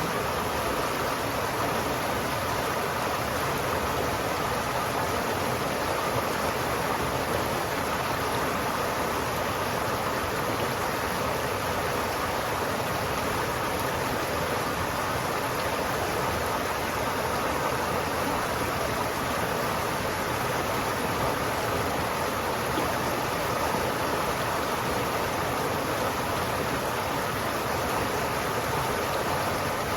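River water flowing steadily, an even, unbroken rushing with no single splashes or changes.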